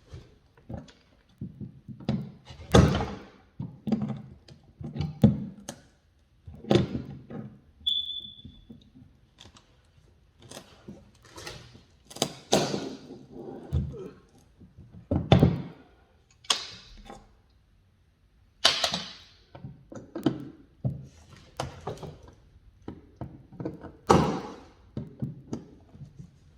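Irregular thunks and knocks of hand-tool work on a wooden stair tread, some strikes sharper than others, spaced a second or two apart. There is a brief high squeak about eight seconds in.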